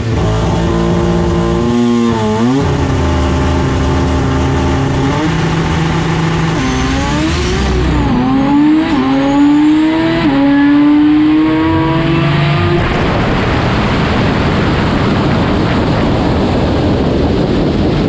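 Drag race car's engine heard from inside the cockpit during a run, loud. Its pitch holds steady in stretches, dips sharply and climbs again as revs change through the gears. About thirteen seconds in the engine note drops away, leaving a steady rush of wind and tyre noise as the car coasts.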